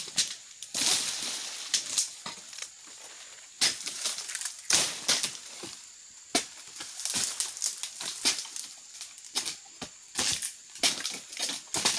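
Pole-mounted harvesting sickle (egrek) hacking at the bases of oil-palm fronds: irregular crunching, scraping strokes mixed with the rustle of the dry fronds.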